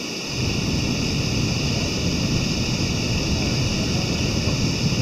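Wind buffeting the microphone: a steady, gusty low rumble that lulls briefly and picks back up right at the start.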